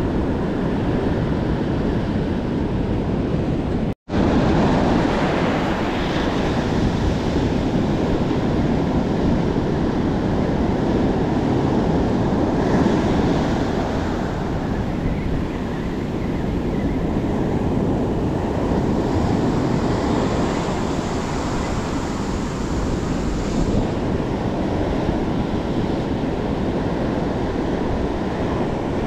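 Surf washing onto a beach in a steady roar of breaking waves, with wind buffeting the microphone; the sound drops out for an instant about four seconds in.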